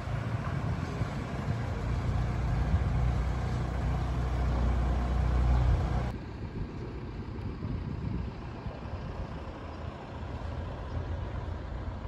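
Low rumble of a motor vehicle engine in the street, louder for the first half and dropping off sharply about six seconds in.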